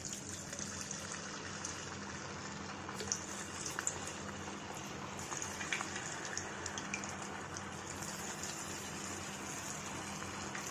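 Hot vegetable oil sizzling steadily in a kadai as raw veg Manchurian balls are deep-fried. Scattered small crackles run through it. The sizzle starts as the first ball drops in.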